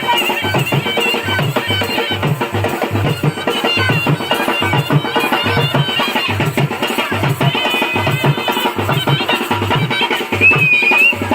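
Loud party music over a sound system, with a heavy, steady drum beat and a wavering high melody line on top.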